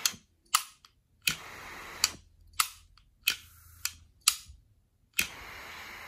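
XIFEI quad-jet butane torch lighter being lit and shut off repeatedly. Each time the rocker arm snaps the cap open with a sharp click and the jets light and hiss steadily for half a second to a second, then the cap snaps shut with another click. This happens about four times, and the ignition catches every time.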